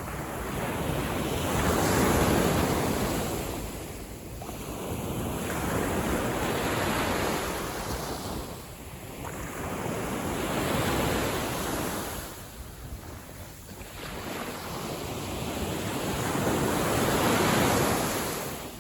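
Gentle sea waves washing in, the rush of water swelling and fading about four times, once every four to five seconds.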